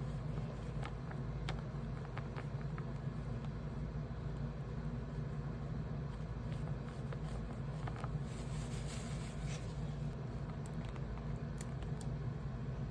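Paper being handled: scattered light clicks and taps, with a brief crinkly rustle about eight seconds in, over a steady low background hum.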